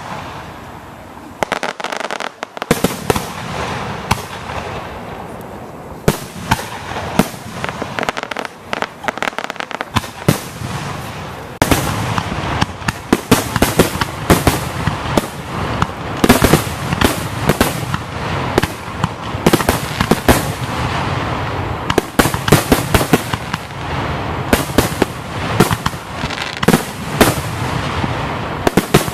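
Aerial fireworks shells bursting again and again, with crackling. From about twelve seconds in, the bangs come much thicker and faster, a dense barrage.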